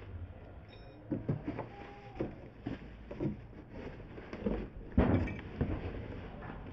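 Cardboard box and foam-wrapped chair parts being handled and lifted out: a run of irregular bumps and rustles, the loudest about five seconds in.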